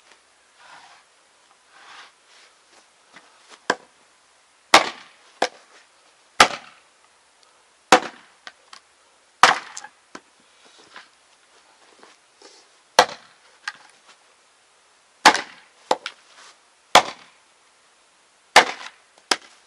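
Axe chopping firewood: sharp chops into a log round held together by a rubber strap, splitting it piece by piece. About ten chops, one every second or two, begin about four seconds in, with only faint rustling before them.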